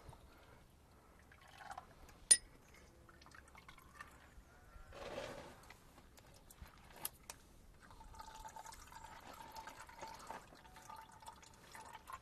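Hydraulic oil dripping and trickling from a Case 4230 tractor's hydraulic filter housing as it is worked loose, becoming a steadier trickle in the last few seconds. A single sharp metallic click comes about two seconds in, with a few lighter clinks of tools or metal parts.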